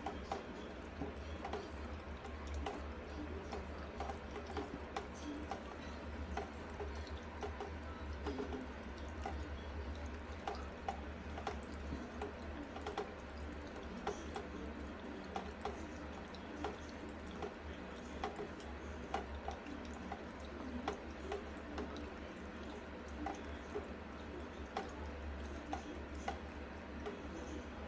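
American Shorthair cat lapping water from a bowl: a long run of small wet clicks and splashes, irregularly spaced, over a steady low hum.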